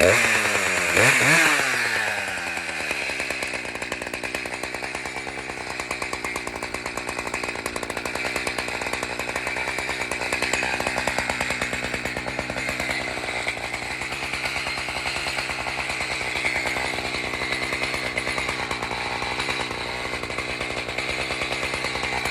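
Chainsaw engine running steadily. About a second in, its pitch dips and comes back up, and then it holds an even note.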